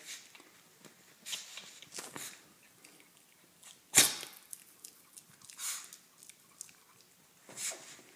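A Yorkshire terrier tussles with a toy armadillo, making scattered short scuffling noises. A sharp knock about four seconds in is the loudest sound.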